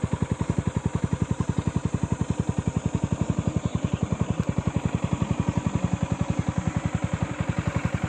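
Motorcycle engine running steadily with an even, rapid putter of about ten beats a second, holding one rate without revving.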